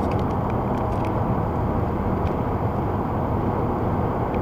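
Steady low rumble of road and engine noise heard from inside a car cruising at highway speed, with a few faint ticks.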